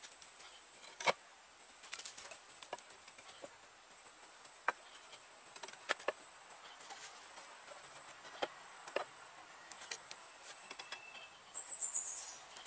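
Light, irregular knocks and taps of thin wooden sticks against each other and against a wooden frame as they are set in place one by one. Behind them is a faint, steady, very high insect whine that fades out about halfway, and there is a short falling high chirp near the end.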